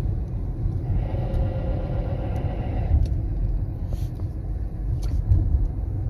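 Steady low road rumble inside a moving 2017 Kia Forte. From about one to three seconds in comes a harsh grinding tone from the brakes. The pads are worn past their material, so the left front brake is grinding metal to metal on the rotor.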